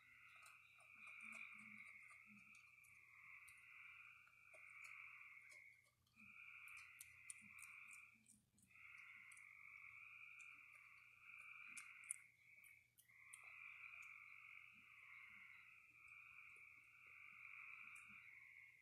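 Frogs trilling in a steady night chorus, long calls with brief pauses between them, and faint scattered clicks as a raccoon chews crunchy food.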